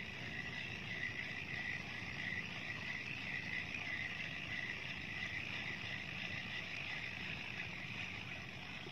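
Deukio 2000-series spinning reel being cranked in a steady retrieve, giving an even, high whirring.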